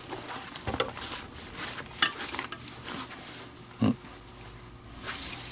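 Leather lace being pulled and worked through a baseball glove's web during relacing: scattered small clicks and rubbing, a dull knock about four seconds in, and a longer scraping rustle near the end.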